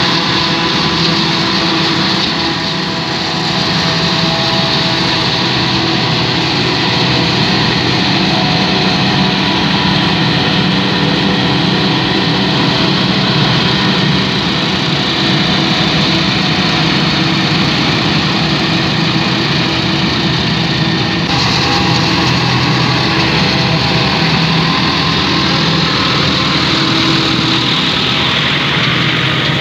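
A forage harvester cutting maize for silage and a tractor running alongside it, a loud, steady machinery drone of diesel engines and cutting gear. The upper part of the sound shifts slightly about two-thirds of the way through.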